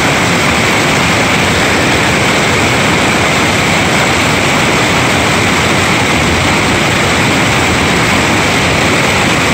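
Whitewater rapid rushing over boulders: a loud, steady, unbroken rush of water.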